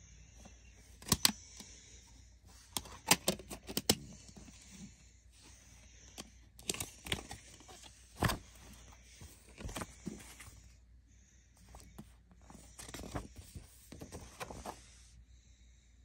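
Hard plastic CD jewel case being handled: scattered sharp plastic clicks and knocks in small clusters, with paper rustling as the booklet is taken out of the case.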